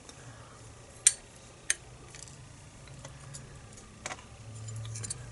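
Small metal lock pins being handled and set down during disassembly: a few light, sharp clicks, the two clearest about a second and a second and a half in, with fainter ones later.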